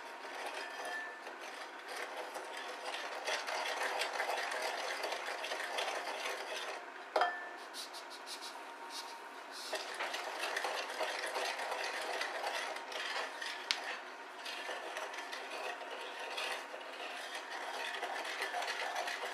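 Wooden spoon stirring sugar into melted chocolate and butter in a glass bowl: a continuous scraping and stirring, with a sharp knock about seven seconds in and another about fourteen seconds in.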